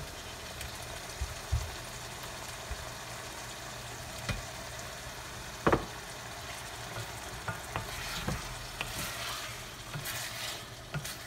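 Chicken mince sizzling steadily as it fries in hot oil in a pan on medium-high heat, browning, while a wooden spoon stirs it. Short knocks of the spoon against the pan come every few seconds, the sharpest about halfway through.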